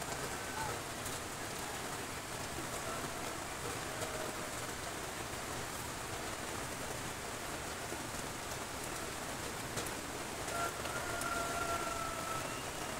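Steady rain, an even hiss, with a faint distant pitched call held for a second or two near the end.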